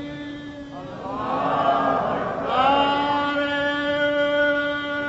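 A man's voice singing a long, drawn-out melodic phrase without clear words, the pitch gliding and ornamented over a steady held note, in the manner of chanted devotional verse. It is softer for the first second, then swells.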